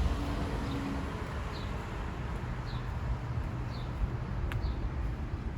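A small bird calling a short falling note about once a second, over a steady low outdoor rumble.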